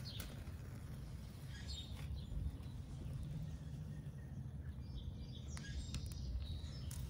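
Outdoor ambience: an unsteady low rumble with a few faint bird chirps and some faint ticks.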